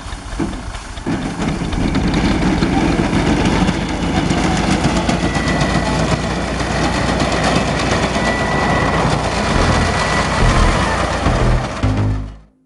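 Ursus 2812 tractor engine running steadily under load while it drives the wheat reaper. The sound grows louder about a second in and cuts away just before the end.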